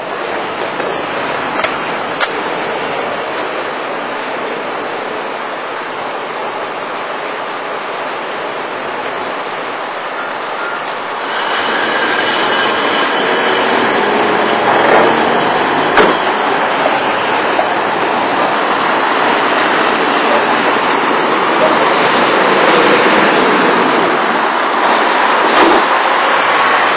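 Road and engine noise of a car driving, heard from inside the cabin; it grows louder about eleven seconds in.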